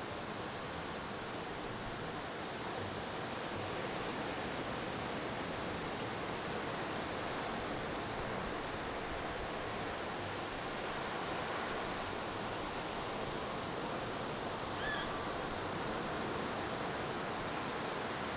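Steady wash of ocean surf breaking and running up the beach, with a brief faint high chirp near the end.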